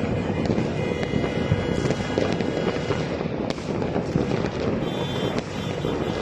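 Dense, continuous crackle and popping of many fireworks and firecrackers going off at once across a city, with music playing too.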